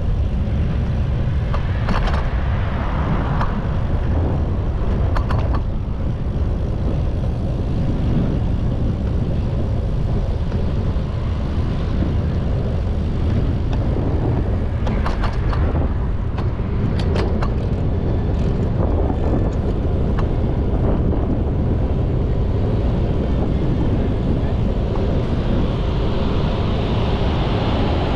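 Steady rush of wind and city traffic noise heard from a moving bicycle, with a few sharp clicks scattered through.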